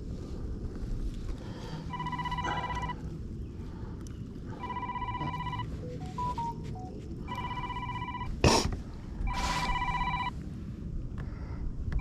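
Mobile phone ringtone ringing, a roughly one-second electronic tone repeating about every two and a half seconds. About eight and a half seconds in there is a brief loud sharp noise.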